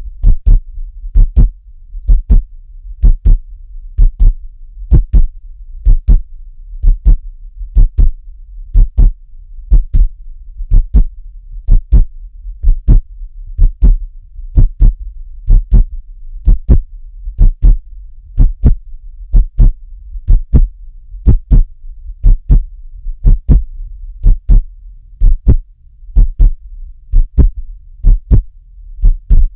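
Heartbeat: steady paired lub-dub thumps, about one beat a second, over a low hum.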